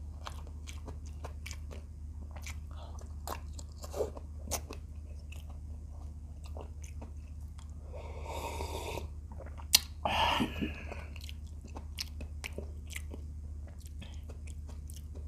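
Close-miked chewing of pakbet vegetables and fried tilapia, with many small wet mouth clicks over a steady low hum. About eight seconds in comes a slurp of broth from a glass lasting about a second, then a sharp click and a brief louder burst.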